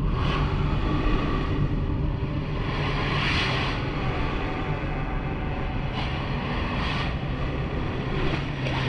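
Steady deep rumble with a rushing hiss that swells and fades every few seconds, starting abruptly.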